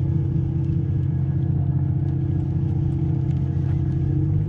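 Boat engine idling: a steady low drone that shifts slightly in pitch near the end.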